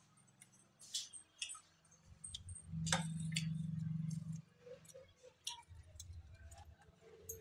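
Scattered clicks and light knocks of a plastic storage container's snap-on lid being unlatched and lifted off, with a low steady hum for about a second and a half in the middle.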